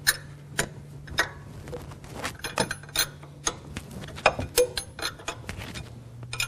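Wrench clinking and clicking against the nut of an injector-cup sleeve puller as it is turned to pull the brass injector sleeve out of a 7.3 Powerstroke diesel cylinder head. Irregular sharp metallic clinks, a few each second.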